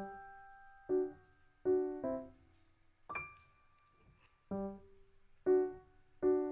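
Background music: a slow piano melody of separate notes and small chords, each struck and left to ring out and fade.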